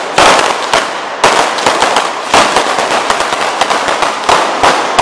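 A tritraca, a Catalan string of firecrackers, going off along the ground: rapid, irregular bangs, a few louder than the rest, over a continuous fizzing crackle.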